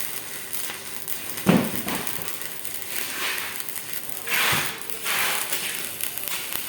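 Electric arc welding crackling and sizzling unevenly, with a sharp knock about a second and a half in.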